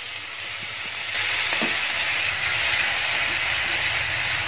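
Chilli masala with green chillies sizzling in a hot non-stick pan with a splash of water added, stirred with a slotted spatula. The sizzle grows louder about a second in and then holds steady.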